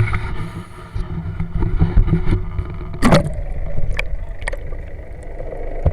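Low rumbling wind and water noise aboard a small fishing boat, with one sharp loud knock about three seconds in and a few light clicks after it.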